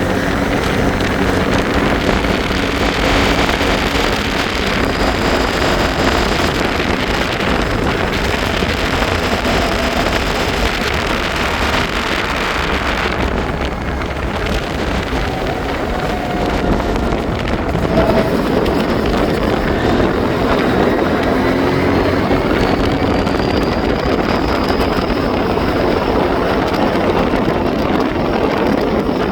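ATV engine running while riding, with wind buffeting the microphone.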